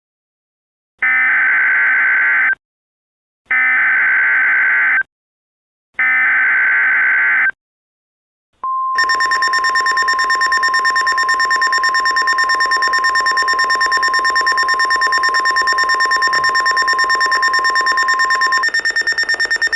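Emergency Alert System alert tones: three short bursts of buzzing data tones, each about a second and a half long, with pauses between them. From about nine seconds in comes the attention signal, a steady high tone under a fast-pulsing, shrill alarm. The steady tone drops out shortly before the end while the pulsing carries on.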